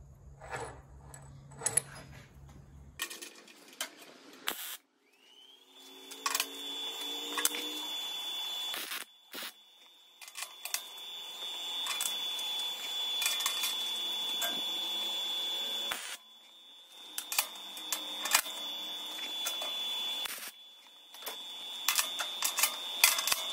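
Scattered metallic clicks and clinks of small steel alignment tabs and locking clamps being handled and set against a sheet-steel forge body, over a faint steady high whine.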